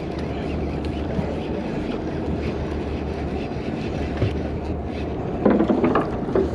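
Fishing boat's engine running steadily, a low drone, with wind noise on the microphone.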